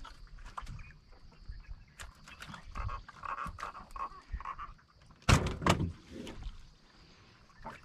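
Irregular small knocks and clicks of hands and a fishing line working against a wooden boat, with a loud thump about five seconds in and a smaller one just after.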